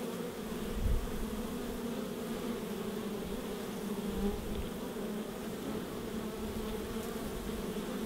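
Honey bees buzzing steadily in a dense swarm-like hum at a hive entrance. A soft low thump comes about a second in.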